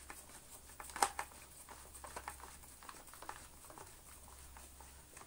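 Faint clicks and light scraping of plastic parts being handled as a brush bar is seated in a Dyson Small Ball's cleaner head, with one sharper click about a second in.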